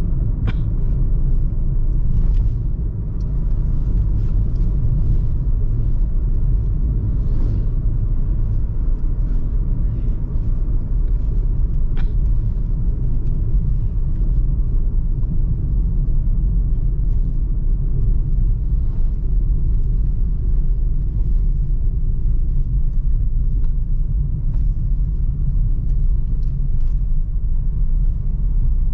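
Suzuki Ertiga driving steadily along a road, its engine and tyre noise heard as a low, even rumble inside the cabin, with an occasional faint click.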